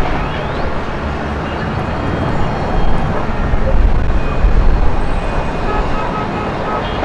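Busy city street: steady traffic noise with people's voices mixed in, and a short high beep repeated several times near the end.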